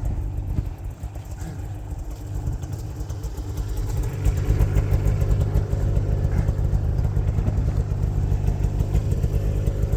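Snowmobile engine idling steadily, a low rumble that grows louder about four seconds in.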